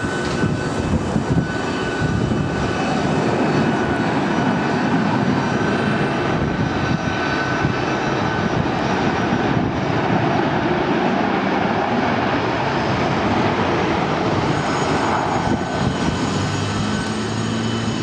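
Four-engine Airbus A340 jet airliner rolling along the runway, its jet engines running with a steady loud roar and a high whine over it.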